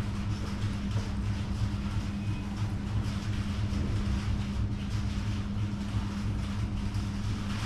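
Steady low electrical hum, with faint taps and rustles as a leather riding boot is handled.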